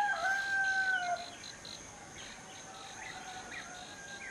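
A rooster crowing: a stepped call ending in a long held note that fades out about a second in, then a fainter second crow. Small bird chirps are heard behind it.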